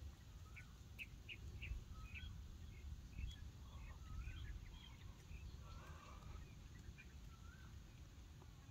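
Faint birdsong: a quick run of short high chirps, then scattered warbling notes, over a steady low rumble.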